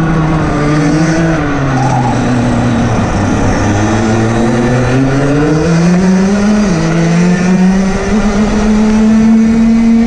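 Rotax DD2 kart's 125 cc two-stroke engine running hard. Its pitch falls as the kart slows, bottoming out about three and a half seconds in, then climbs under acceleration. It drops suddenly by a small step near seven seconds and climbs again to a steady high pitch.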